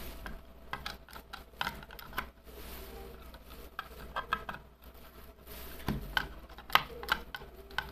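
Plastic lid of a small electronics case being pushed down and snapped shut by hand: a scatter of light plastic clicks and knocks, with a few louder knocks near the end.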